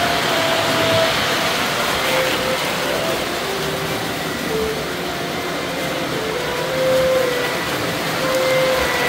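Model trains running around a layout's track, a steady rolling and motor whir, with a faint tune of short notes over it.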